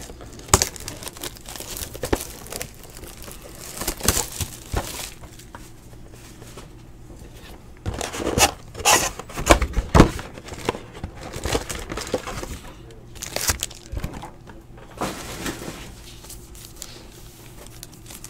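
Hands handling trading cards and foil card-pack wrappers: irregular crinkling and rustling with sharp snaps, busiest about halfway through, over a faint steady low hum.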